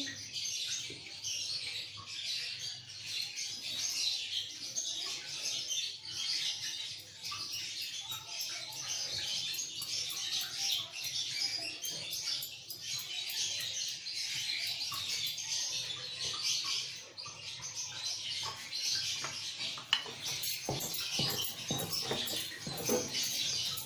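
Many small birds chirping continuously in the background. Near the end come a few soft knocks of a wooden rolling pin working dough on a wooden board.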